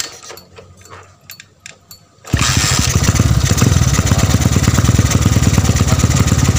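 A Honda GL100's single-cylinder four-stroke engine, fed by a newly fitted Keihin PWK 33 carburettor that has not yet been tuned, is started: a few light clicks, then about two seconds in it catches and runs loud and steady with a rapid, even firing beat.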